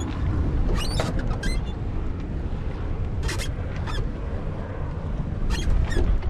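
Strong wind rumbling on the microphone aboard a small sailboat in choppy water, with the sound of water sloshing. A few short, sharp high squeaks or splashes stand out, about six of them scattered through.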